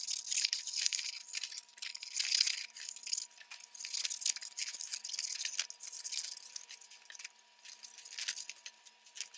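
Scissors cutting shapes out of a sheet of cardstock: a continuous run of crisp snips and paper rustle, with a few short pauses.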